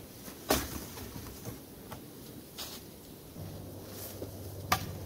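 Dead wood being handled: a few sharp cracks and knocks of a log against branches, the loudest about half a second in and another near the end.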